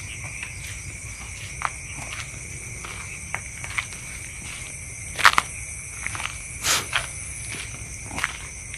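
Crickets and other night insects chirring steadily in several high, even tones, with scattered short clicks and rustles over them, loudest about five seconds in and again near seven seconds.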